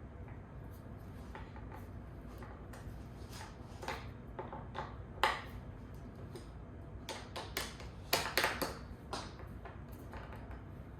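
Scattered metallic clicks, taps and clinks of office chair parts and tools being handled and fitted during assembly. They come irregularly, with one sharp knock about five seconds in and a quick cluster around eight to nine seconds.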